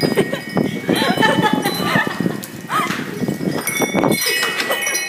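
Several people's voices talking and calling out at once, without clear words.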